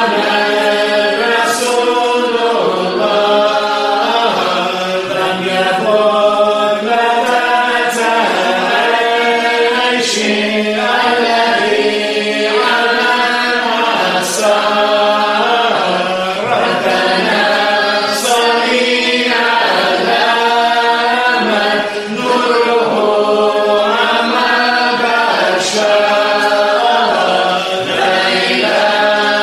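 Group of voices chanting a Sufi qasida together in a dhikr, a slow, continuous melodic line sung in Arabic.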